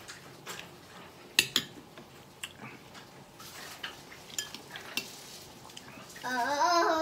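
A metal spoon clinking and scraping against a ceramic bowl as fruit salad is scooped up, in scattered sharp clicks; the loudest comes about a second and a half in. Near the end a person's voice comes in.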